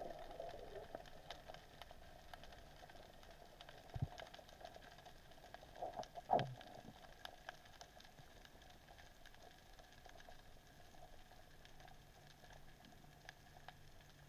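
Faint underwater ambience through an underwater camera: a low hiss with scattered small clicks and crackles, a knock about four seconds in and a short falling swoosh about six seconds in.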